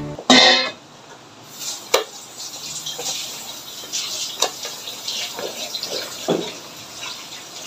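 A small Nestlé all-purpose cream carton being torn open by hand: crinkly rustling and scattered crackles and clicks, after a brief loud burst about a third of a second in.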